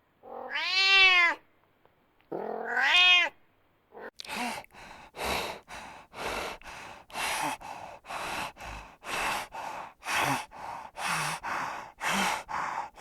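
A cat meowing twice in long, rising-and-falling calls, then from about four seconds in a steady run of short raspy calls, roughly one a second.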